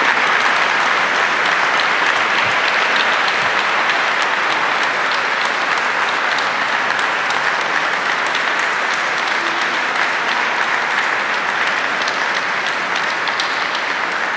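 Concert audience applauding at length, a dense patter of many hands clapping that eases off slightly near the end.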